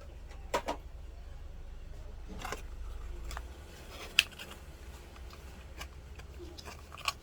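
A handful of separate sharp clicks and taps, the loudest about four seconds in, over a steady low hum.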